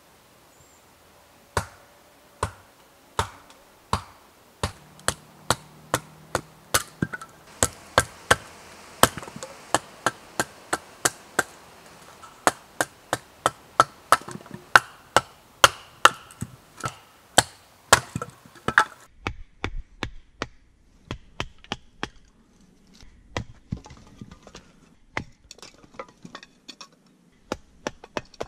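Wooden baton knocking a blade down through sticks to split kindling: sharp, regular wood-on-wood strikes about two a second. About two-thirds of the way in they give way to lighter, irregular taps.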